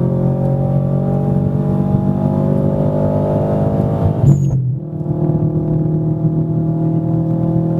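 Turbocharged Subaru WRX flat-four with a Stage 2 tune, downpipe and intake, accelerating hard with its pitch climbing steadily. About four seconds in it breaks off for a gear change with a short hiss, then pulls again from lower revs and climbs.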